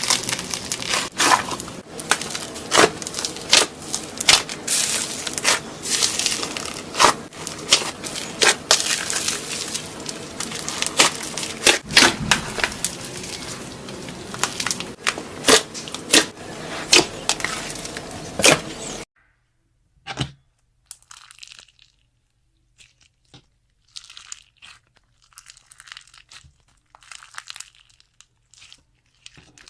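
Slime being squeezed and pressed by hand: dense crackling with many sharp snaps and pops, crunchy slime. About two-thirds of the way through it cuts off to much quieter, sparse soft crackles.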